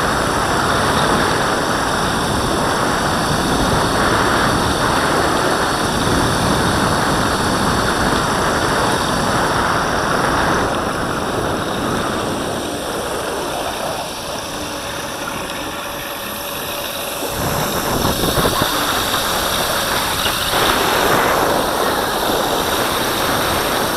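Steady rumbling wind and rolling noise from an electric mountainboard's air-filled tyres running over asphalt, easing off for a few seconds midway before picking up again.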